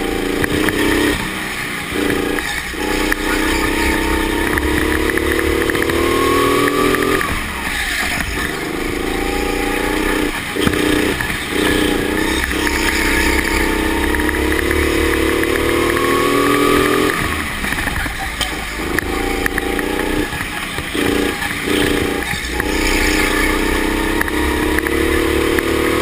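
Electric go-kart's drive whining, heard onboard: the pitch climbs steadily along each straight and drops away several times as the kart slows for the corners.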